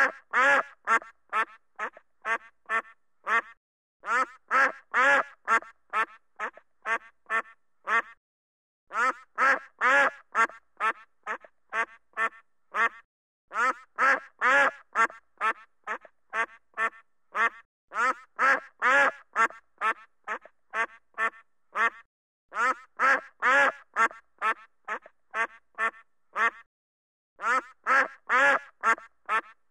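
A duck quacking in repeated runs. Each run is about eight to ten quacks that start loud and fade, and a new run begins every four to five seconds.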